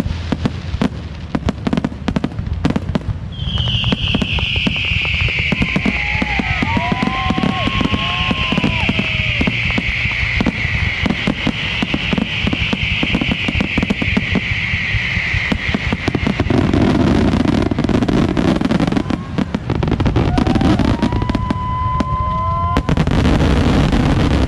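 Fireworks going off in rapid succession: a dense run of bangs and crackles. A long high hiss slides slowly down in pitch from a few seconds in until past the middle, and short whistles sound around the middle and near the end.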